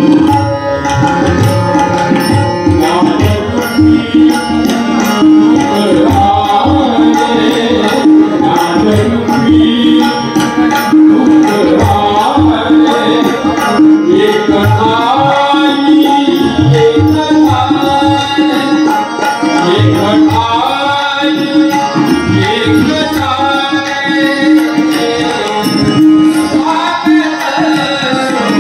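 A welcome song (swagat geet) sung with tabla accompaniment over a steady held drone, the voice gliding through a melody while the tabla keeps a regular beat.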